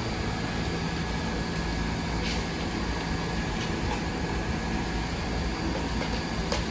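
Steady mechanical hum of a subway train, with a few faint clicks; the level holds even throughout, with no rise or fall of a train speeding up or slowing down.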